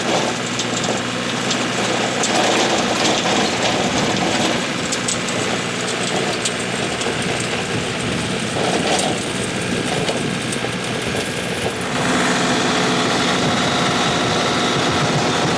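A small engine running steadily, a little louder about twelve seconds in.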